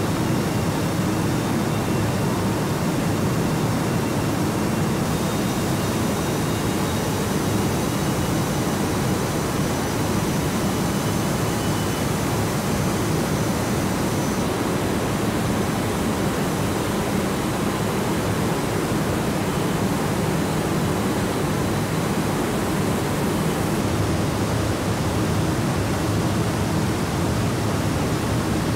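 Steady rushing hiss of an automotive paint booth: ventilation airflow and robotic paint spraying, with faint high whines in the first half.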